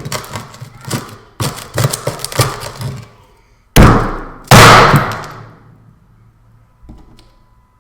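Hammer blows smashing an iPhone 4S: a quick run of sharp knocks, then two heavy hits about four seconds in, and one faint knock near the end.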